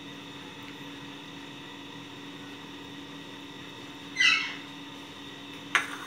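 Steady electrical hum with a few faint steady tones. About four seconds in comes a short, high-pitched squeak lasting about half a second, the loudest sound, and a brief click comes near the end.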